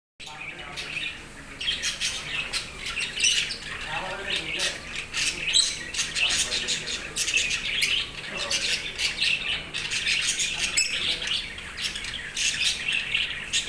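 Many small caged pet birds chirping and squawking at once in a dense, continuous chatter.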